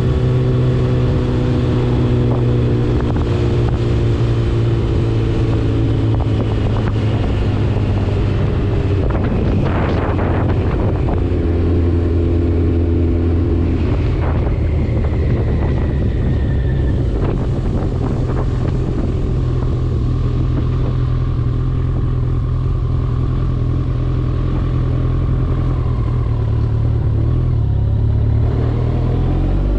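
2012 Kawasaki ZX-14R's inline-four engine through a Two Brothers Black Series exhaust, running under way: the engine note sinks slowly over the first several seconds as the revs fall, holds fairly steady, then starts to rise right at the end as the throttle opens.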